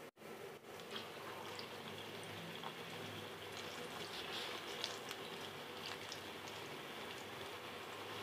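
Pakoras deep-frying in hot ghee: a steady sizzling hiss with scattered small pops, setting in about a second in.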